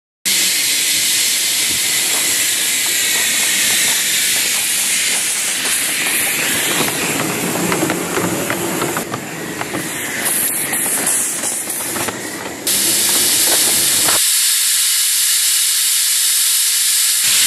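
Loud, steady hiss of live steam escaping from a 7¼-inch gauge model GWR 1101 dock tank locomotive in steam. The hiss dips briefly about twelve seconds in, and the lower rumble under it stops a couple of seconds later, leaving the hiss alone.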